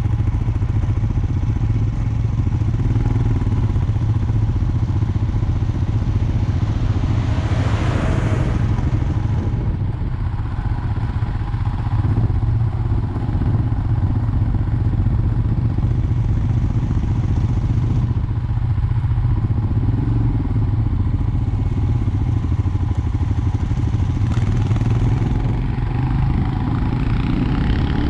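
Motorcycle engine running steadily while riding over a rough off-road track, a constant low drone with clatter over it. A rushing noise swells and fades about eight seconds in.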